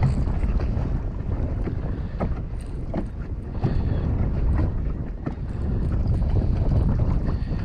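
Wind buffeting the microphone out on open water in a boat, a steady low rumble, with a few light knocks scattered through it.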